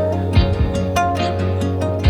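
Background music: a plucked-string melody over a steady bass line, with a light regular beat.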